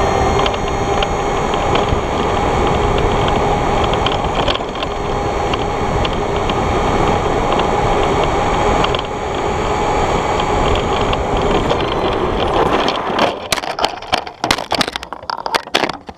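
ECX Ruckus 2WD electric RC monster truck running fast on asphalt, heard from a camera on its bed: a steady motor and gear whine over tyre rumble. From about three seconds before the end the truck flips while turning, and a fast series of knocks and clatters follows as it tumbles and comes to rest upside down.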